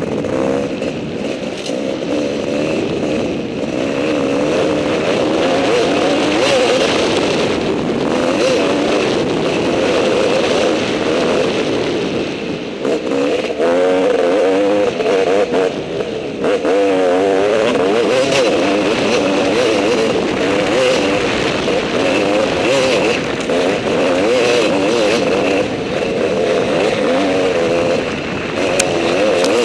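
Off-road dirt bike engine running hard under load on a rough trail, the revs rising and falling continually with throttle and gear changes, heard from the riding bike itself. A few times the revs drop briefly as the throttle closes, then climb again.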